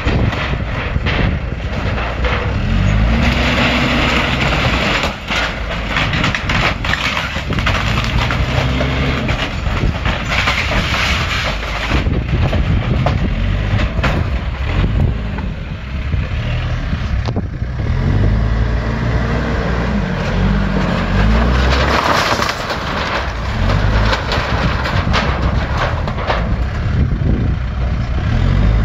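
Case backhoe loader's diesel engine working hard, its pitch rising and falling as the front bucket pushes into an old shed wall, with the crack and splinter of breaking boards and crumpling sheet-metal siding throughout.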